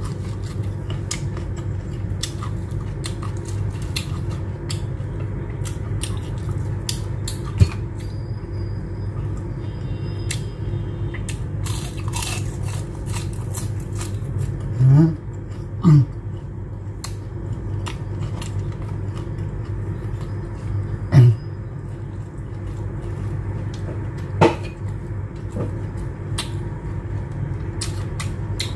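Close-up eating sounds: chewing, lip smacks and finger licking as many short clicks, over a steady low hum. A few short voiced sounds from the eater break in, about halfway through and again later.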